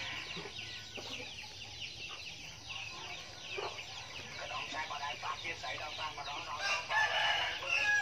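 Many small birds chirping, a continuous run of short high notes that sweep downward, with one louder, fuller call about seven seconds in.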